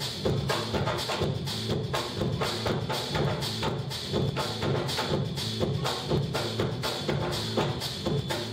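Live percussion ensemble playing a dense, steady rhythm on congas and other hand drums.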